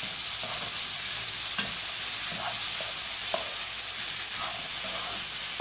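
Chickpeas, boiled potato and onion sizzling in oil in a frying pan, with a steady hiss, while a spatula stirs and scrapes them around the pan in short, irregular strokes.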